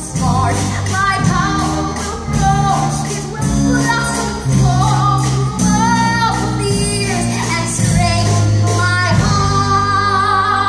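A female voice singing a musical-theatre song over instrumental accompaniment with held bass notes.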